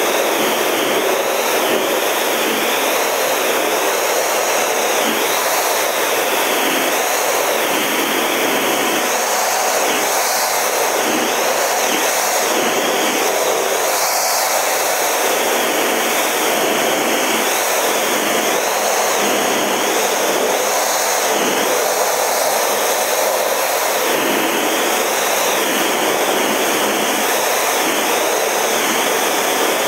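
Steady rushing jet noise inside the cockpit of a Snowbirds CT-114 Tutor in flight, from its J85 turbojet and the airflow over the canopy, with a high whine that wavers up and down.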